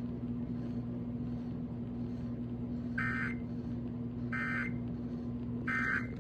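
Emergency Alert System end-of-message (EOM) data bursts on FM radio: three short bursts of digital warbling tone about a second and a quarter apart, marking the end of the alert. A steady low hum runs underneath.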